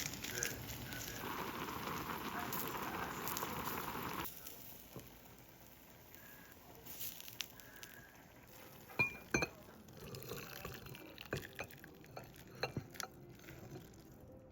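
Home kitchen cooking sounds: a steady hiss for about the first four seconds that cuts off suddenly. After it come scattered light clicks and knocks of utensils and cookware, the sharpest a pair about nine seconds in.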